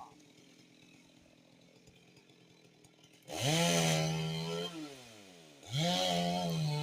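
Two-stroke chainsaw. It is quiet at first, then revs up to full speed about three seconds in, holds, drops back toward idle with a falling whine, and revs up again near the end.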